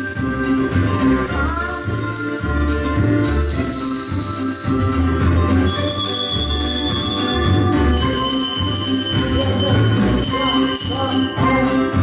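Children's handbell ensemble ringing coloured handbells, high ringing notes struck one after another and left to sound on. Under them runs backing music with a pulsing bass line.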